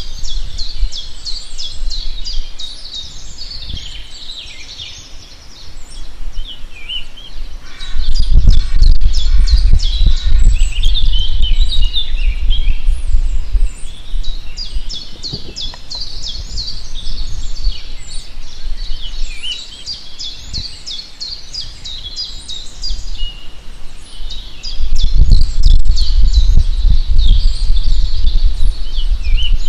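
Many small birds chirping and twittering, with quick high calls overlapping throughout. Twice, for several seconds each time, a loud low rumbling noise swells up beneath the birdsong.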